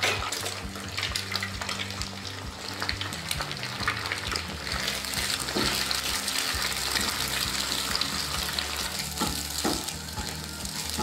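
Eggs sizzling as they fry and are scrambled in hot oil in a wok. A silicone spatula scrapes and taps against the pan now and then.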